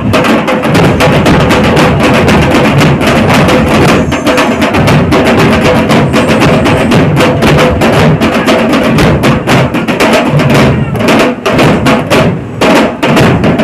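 A group of drummers beating large double-headed barrel drums and smaller hand-held drums with sticks in a fast, loud, unbroken rhythm of dense strokes.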